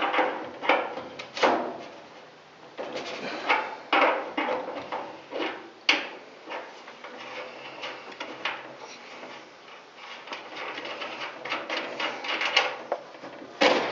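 Hand tools and metal parts clattering and scraping in irregular knocks and rubs, as a wrench is worked at the water-line fitting of a furnace humidifier.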